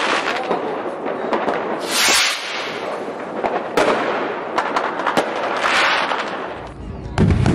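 Fireworks going off: a steady crackle with scattered sharp bangs, two louder bursts about two and six seconds in, and a deeper, heavier boom near the end.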